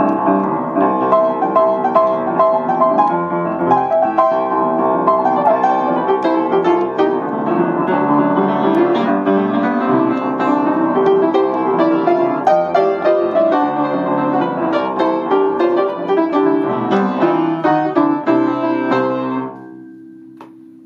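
Piano played continuously, melody over chords, until about nineteen seconds in, when the playing stops and the last low notes ring on and die away. Picked up by a compact camera's built-in microphone resting on the piano itself.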